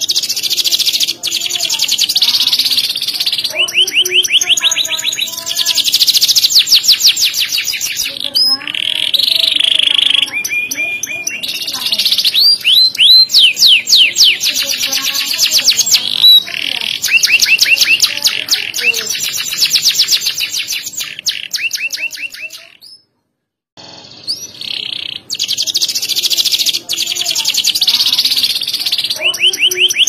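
Domestic canary singing a long, loud song of fast trills of repeated notes, rolls and quick glides. The song breaks off for about a second roughly three-quarters of the way through, then resumes.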